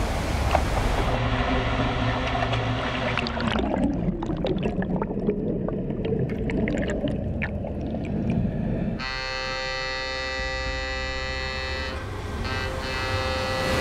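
Seawater rushing over a sinking warship's deck, then muffled underwater churning and crackling as the hull floods. For the last few seconds a steady, many-toned droning chord takes over.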